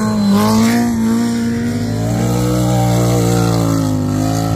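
Race side-by-side UTV engine held at high revs as it speeds past on sand. It is a loud, steady engine note that dips slightly in pitch midway and climbs again near the end.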